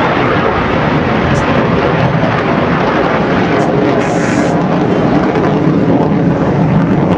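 General Dynamics F-111's twin Pratt & Whitney TF30 turbofans running in afterburner during a dump-and-burn pass, the dumped fuel burning behind the jet: a loud, steady jet noise.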